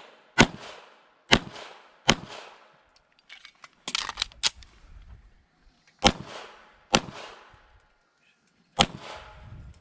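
Pistol shots fired during an IDPA stage: single shots spaced about a second apart, with a quicker cluster of three or four softer shots about four seconds in. Each shot leaves a short echo.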